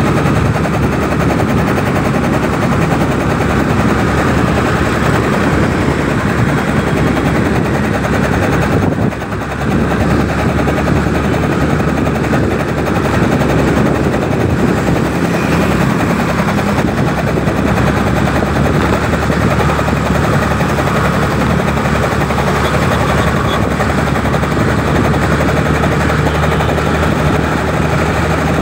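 Wind buffeting the microphone of a moving two-wheeler, with its engine running steadily underneath. The noise dips briefly about nine seconds in.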